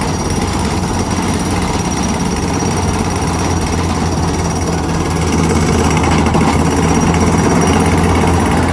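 Heavy diesel construction machinery running with a rapid, continuous mechanical hammering, getting a little louder about five seconds in.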